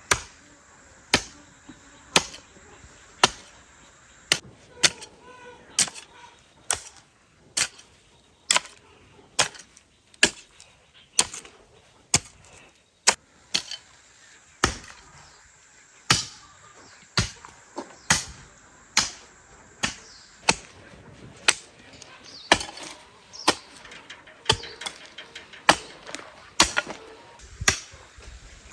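A long series of sharp strikes, about one to two a second, fairly even in spacing and loudness.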